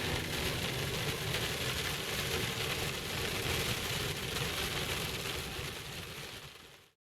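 Steady tyre and road noise of a car driving in the rain on a wet highway, heard from inside, with a low rumble under a rushing hiss. It fades out and cuts off just before the end.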